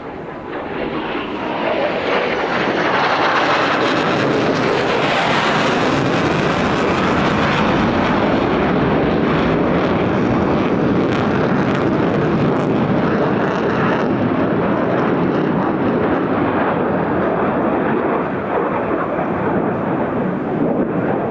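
Mitsubishi F-2 fighter jet's single General Electric F110 turbofan passing low and loud: the jet noise swells over about two seconds, is at its loudest and most hissing a few seconds in, then goes on as a long steady rumble that slowly dulls as the jet moves away.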